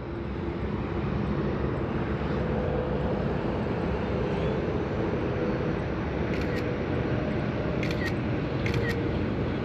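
Steady outdoor background rumble with a faint steady hum. In the last few seconds come three short clicks from a phone camera's shutter.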